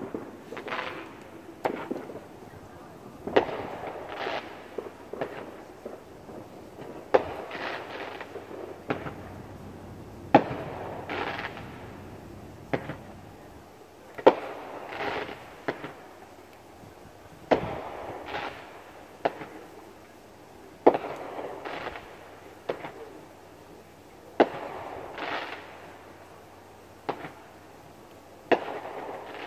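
Fireworks bursting: a sharp bang about every three to four seconds, each followed by a fading tail.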